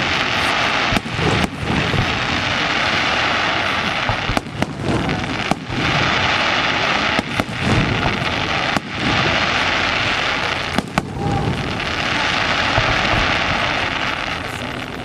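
A fireworks display going off loudly: waves of crackling hiss from bursting shells, broken by sharp bangs every second or two.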